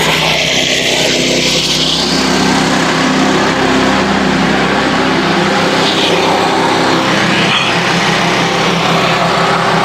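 Frontier portable band sawmill running steadily, its small gasoline engine holding speed while the band blade saws through a red oak log.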